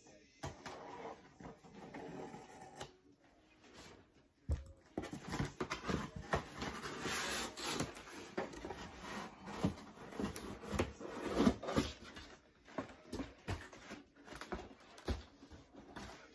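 Cardboard boxes being handled: rustling and scraping of cardboard with scattered knocks and thumps, busiest in the middle as a large shipping box is lifted and set aside.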